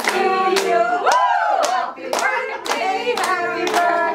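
Several voices singing together while hands clap along in time, about two claps a second.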